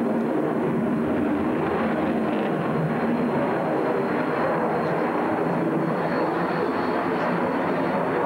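MiG-29 fighter's twin Klimov RD-33 turbofans heard from the ground as the jet flies overhead: a steady rush of jet noise that holds an even loudness without rising or falling.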